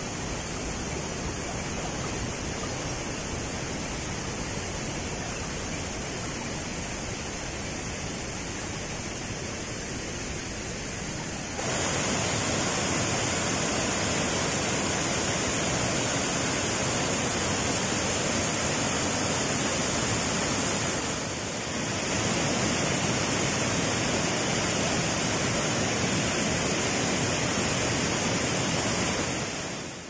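Steady rush of a waterfall, an even wash of falling water with no other sound. It gets louder about a third of the way in and dips briefly about two-thirds through.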